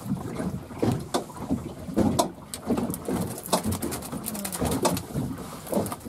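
A freshly landed gurnard croaking in a landing net, a run of short irregular low croaks, mixed with knocks and rustles as it flaps in the net.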